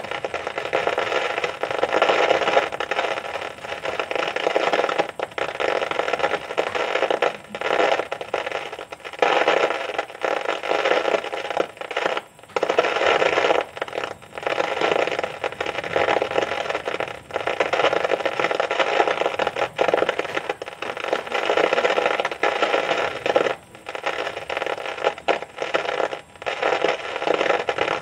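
Heavy storm rain pelting down: a loud, dense rushing patter that swells and dips unevenly.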